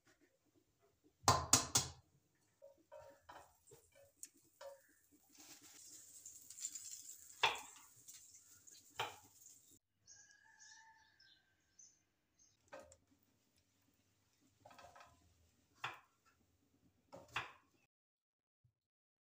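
Kitchenware clatter: a sharp burst of knocks about a second in, then scattered lighter clicks and taps, with a stretch of steady hiss in the middle and a short high tone about ten seconds in.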